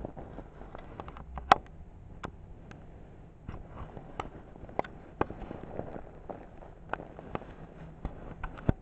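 Handling noise close to the microphone: irregular sharp clicks and taps with light rustling of bedding, the loudest about a second and a half in and another just before the end.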